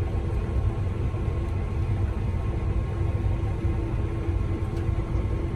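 Combine harvester running: a steady low rumble with a constant droning hum.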